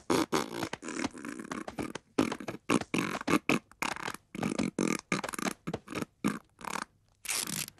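A man making a quick, irregular run of short mouth noises, hisses and pops, beatbox-like, with a somewhat longer hiss near the end.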